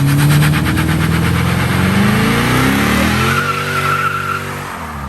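Car engine revving hard, its pitch climbing and then holding, while the tires spin and skid on wet pavement in a burnout, with a tire squeal about three seconds in; the revs drop near the end.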